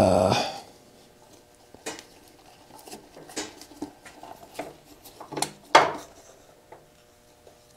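Hard parts knocking and clattering as an igniter unit is worked by hand into a motorcycle's frame beside the battery cage: a loud clatter at the start, scattered lighter clicks and taps, then another sharp knock near the end.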